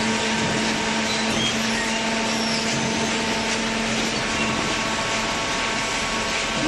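Hydraulic baling press running: a steady machine hum with a held low tone over a broad, even noise.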